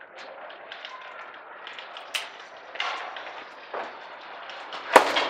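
Faint steady background noise with a few light ticks, then a sharp, loud thud about five seconds in as a person carrying a cardboard box falls onto the tiled floor.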